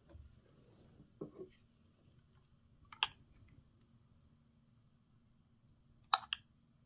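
A glass container of seasoning sauce being handled, giving a few light knocks and sharp clicks. Two soft knocks come about a second in, one sharp click around three seconds, and two quick clicks near the end.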